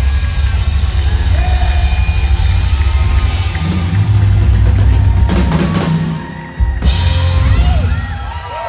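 Live country-rock band playing the closing bars of a song, with loud drums and bass and yells from the crowd over it. The music drops out for a moment and comes back hard about seven seconds in, then fades near the end.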